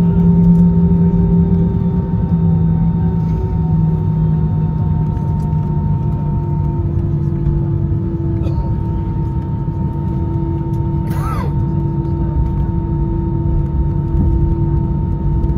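Airbus A320 cabin noise on the ground after landing: the jet engines run at low power with a steady hum and whine over the rumble of the wheels, their tones stepping slightly lower a few seconds in. A brief sharp sound about eleven seconds in.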